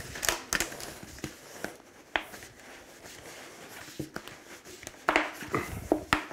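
Ribbed flexible plastic duct being twisted and worked by hand, giving scattered clicks and crinkles from the flexing plastic ribs, with a quick run of clicks near the end.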